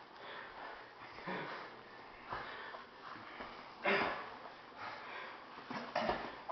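Hard breathing of grapplers straining on the mat: a few sharp, noisy exhalations and sniffs through the nose, the loudest about four seconds in.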